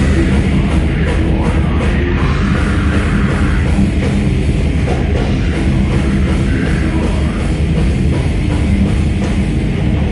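Heavy metal band playing live, loud and unbroken, with a drum kit and guitars.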